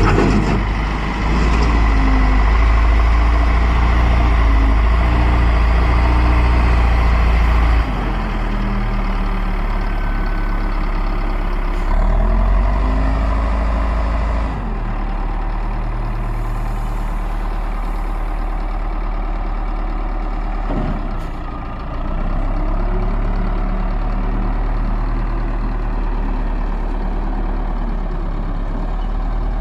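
Caterpillar 950B wheel loader's diesel engine running, its pitch rising and falling several times as it revs up and settles back, with a steady low hum throughout.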